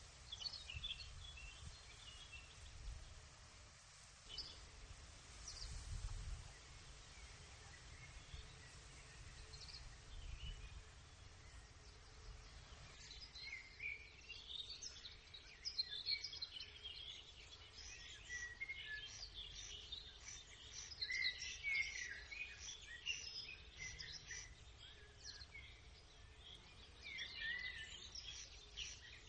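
Many small birds chirping and singing, sparse at first and much busier from about halfway through, with a few low rumbles in the first half.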